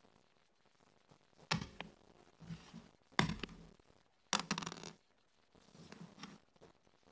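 Backgammon checkers being picked up and set down on a wooden backgammon board: a handful of sharp clacks a second or so apart.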